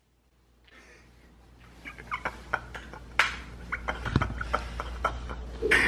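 A string of small firecrackers popping and crackling irregularly, with the loudest bang about three seconds in. A wavering cry starts near the end.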